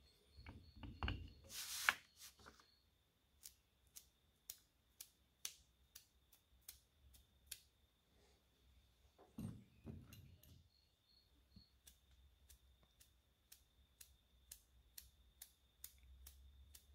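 Faint handling noises as a painted resin fishing lure is turned in the hands and set on a wire stand, with a short rustle about two seconds in. These are followed by a run of small sharp clicks, about two a second.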